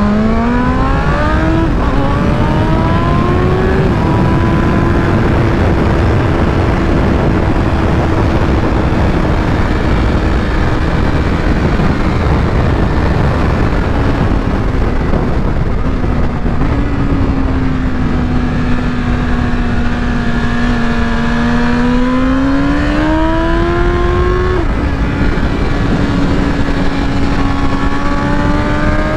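BMW M 1000 RR's inline-four engine at speed on a racetrack, heard onboard over rushing wind. Its pitch climbs at first and then holds steady for several seconds. It falls away in the middle and climbs hard again, drops suddenly at an upshift near the end, then rises once more.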